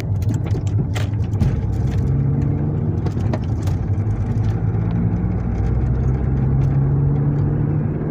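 A car's engine and road noise, heard from inside the moving car, with the engine pitch rising slightly midway as it speeds up. A few short clicks or knocks are scattered through it.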